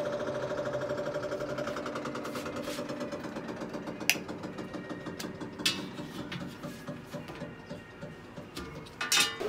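Clothes washing machine running after its drive belt was refitted: a fast, even mechanical knocking that fades steadily, with a few sharp clicks, the loudest near the end. The owner finds a rubber part has come loose and keeps catching, and says it needs replacing.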